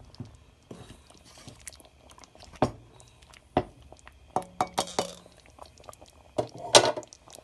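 Spatula stirring a thick chicken curry in a pan: wet squelching of the sauce and irregular knocks and scrapes of the spatula against the pan, a cluster around the middle and the loudest near the end.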